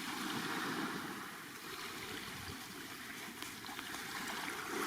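Calm Black Sea waves washing gently onto the shore: a steady rushing wash of water that swells a little near the end.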